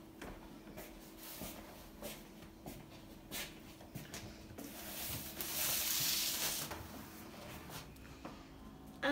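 Quiet room sound with small clicks and taps, and a rustling hiss lasting about two seconds midway, over a faint steady hum.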